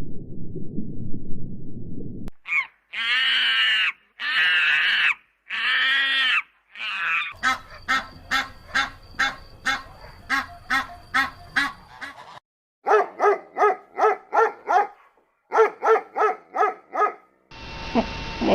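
Waterfowl calling in separate edited clips. First a low noise for about two seconds, then four long drawn-out honking calls of about a second each, then runs of short quick calls, about four a second, and then faster still.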